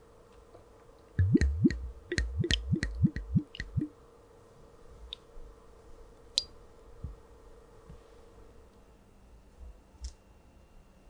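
Cloudy nigori sake glugging out of the neck of a Tozai Snow Maiden bottle into a glass: a quick run of about eight glugs lasting some three seconds, starting about a second in. A couple of light clicks follow later.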